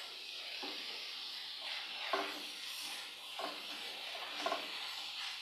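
Onion-and-spice masala with freshly added chopped tomatoes sizzling in a non-stick frying pan, with a steady hiss, while a wooden spatula stirs it in short scraping strokes every second or so.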